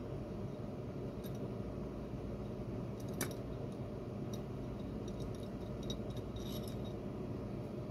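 Steady low room noise with a few faint, short clicks and ticks: one sharper click about three seconds in and a small cluster of ticks near the end.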